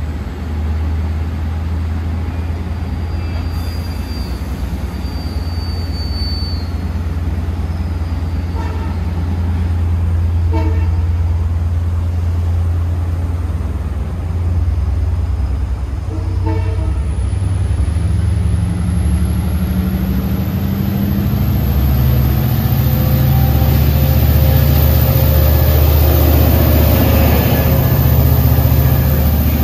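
Long Island Rail Road DE30AC diesel locomotive 408 running with a steady low drone, with a few short horn toots in the middle. From about two-thirds of the way through, the engine note rises and a high whine climbs in pitch as the train pulls away and the locomotive passes close by, growing louder.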